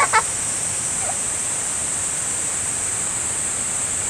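Steady rushing of a mountain river, an even hiss that does not change. A short voice sound comes right at the start.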